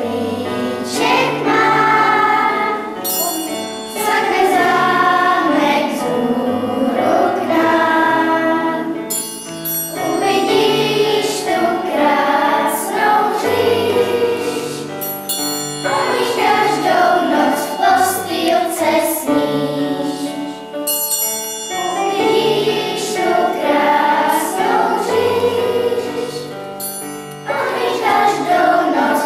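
A children's choir singing together from song sheets over an instrumental accompaniment with a steady bass line, with a bright shimmering accent, like bells or a cymbal, every six seconds or so.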